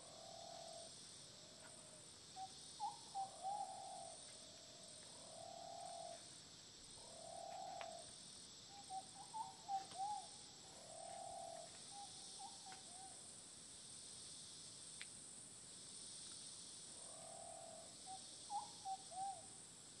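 Rainforest ambience: a steady high insect buzz, with an animal giving short low calls in groups of several, loudest in three clusters near the start, the middle and the end.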